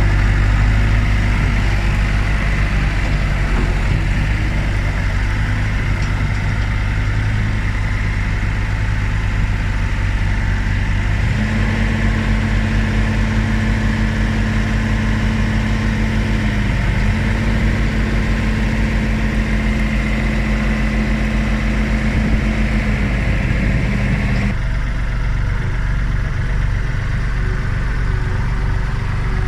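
Diesel engine of a compact earthmoving machine running steadily. About a third of the way in, a steady higher-pitched whine joins it, dips briefly once, and cuts off shortly before the end.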